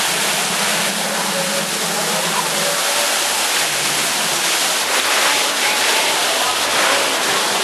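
Steady rush of water from an indoor artificial waterfall, with faint voices of a crowd beneath it.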